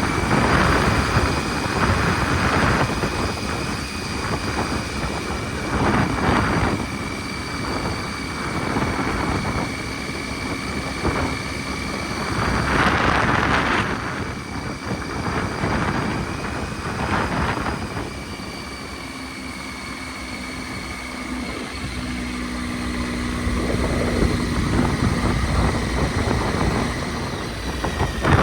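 Triumph Tiger 800 XC's three-cylinder engine running, with gusts of wind buffeting the microphone that swell and fade every few seconds.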